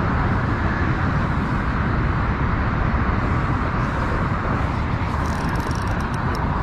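Steady wind noise on the microphone, with a few faint ticks near the end.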